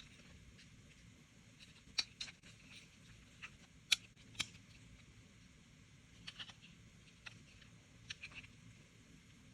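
Light, sharp clicks and taps from parts of a 3D-printed folding knife prototype being handled and taken apart, scattered irregularly with a few close pairs, the loudest about two and four seconds in.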